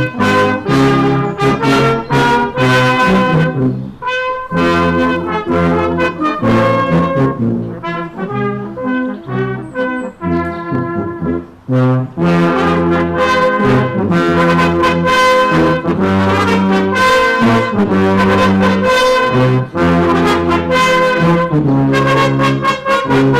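Brass band playing a slow piece in sustained chords. It thins out and softens for several seconds in the middle, then the full band comes back in.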